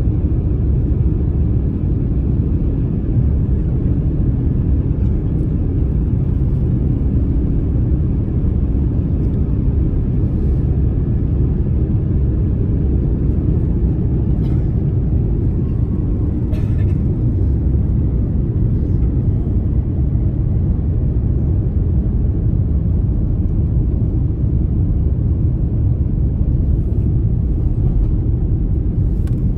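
Airbus A350-1000 takeoff heard from inside the cabin: a steady low rumble of the Rolls-Royce Trent XWB engines at takeoff thrust, running on evenly through lift-off and the first climb. A few faint clicks come about halfway through.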